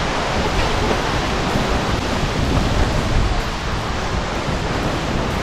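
Waterfall close by: a steady, loud, even rush of falling water.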